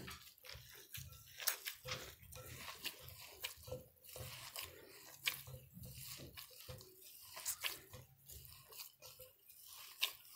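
Gloved hands squeezing and working a damp dough of fine bulgur and flour in a glass bowl: irregular crunchy, wet squishing with many small crackles.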